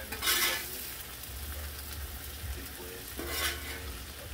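Bratwurst, peppers and onions sizzling on a Blackstone flat-top griddle, with a metal spatula scraping across the steel plate twice, briefly about a quarter-second in and again about three seconds in.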